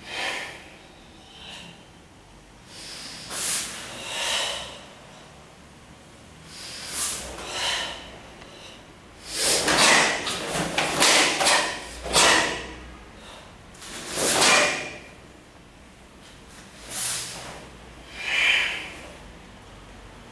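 Karate kata Suparinpei being performed: short, sharp hissing exhalations and the snap of the cotton gi with each technique, about a dozen bursts, coming thickest and loudest from about nine to fifteen seconds in.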